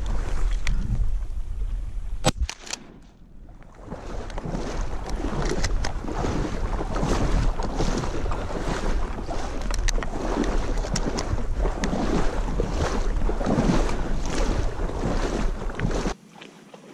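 A person wading through shallow marsh water in waders, with water sloshing and splashing around the legs and wind buffeting the microphone in a steady low rumble. The sound dips briefly a couple of seconds in and cuts off sharply near the end.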